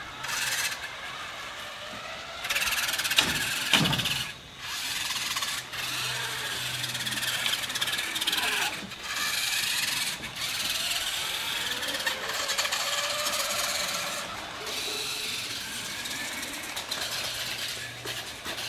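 Radio-controlled model cars driving around, their motors rising and falling in pitch as they speed up and slow down.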